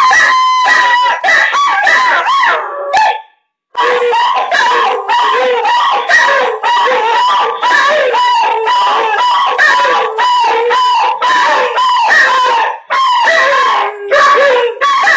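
Dogs howling: a long run of short howls that rise and fall in pitch, broken by a brief silence about three seconds in.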